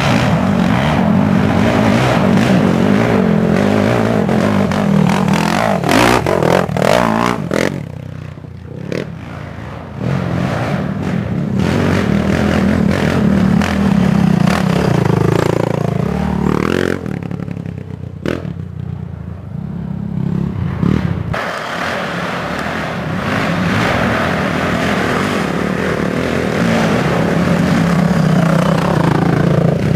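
Racing quad (ATV) engines running hard and revving, with rattling and scraping along the way. The sound eases off twice, around eight to ten seconds in and again around eighteen to twenty-one seconds, before picking back up.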